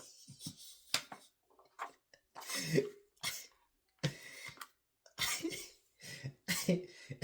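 A man's voice in several short bursts that are not words, with brief quiet gaps between them.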